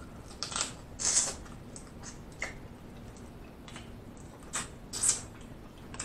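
Wet mouth sounds of a person eating sauce-covered king crab meat: a handful of short, irregular smacks and slurps while chewing, the loudest about a second in and another strong one about five seconds in.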